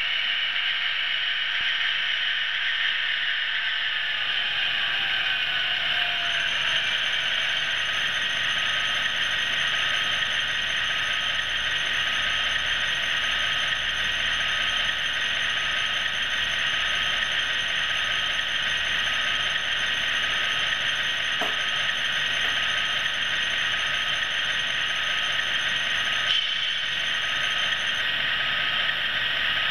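00 gauge model train's mechanical running noise: a steady hiss and whir, with a faint whine that falls in pitch over a few seconds near the start. Two faint clicks come later.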